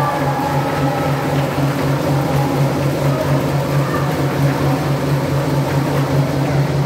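Baseball crowd cheering in the stands, over a fast, even low beat of fans banging inflatable thundersticks together.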